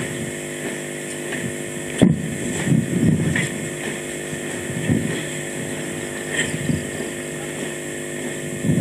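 A steady mechanical drone, like a small engine running, with irregular low rumbles every second or so.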